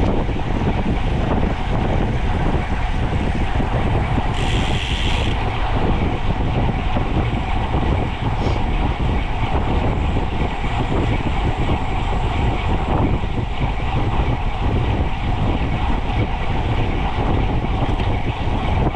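Wind rushing and buffeting over the microphone of a camera riding along on a moving bicycle, steady and loud. A short high-pitched sound comes about four seconds in.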